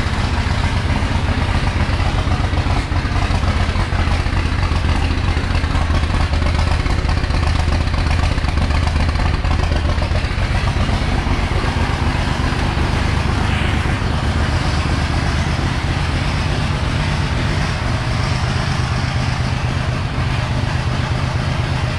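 First-generation Cummins 5.9-litre inline-six diesel in a 1976 Ford highboy, running steadily on a cold start, its first in ten years.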